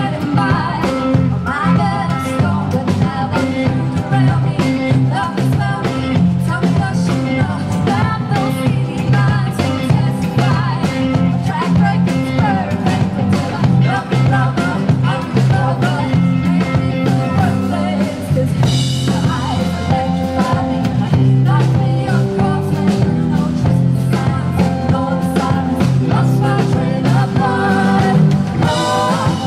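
Live band playing a song: a woman singing lead with a second woman on backing vocals, over electric guitar, electric bass and drum kit.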